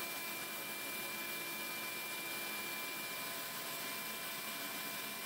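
Surface grinder idling with its wheel spinning and not cutting: a steady, even hiss with a faint high whine.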